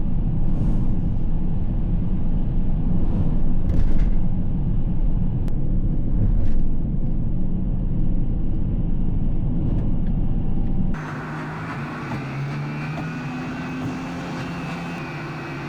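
Low, steady rumble of a vehicle on the move. About eleven seconds in it cuts abruptly to a quieter steady hum with a hiss above it.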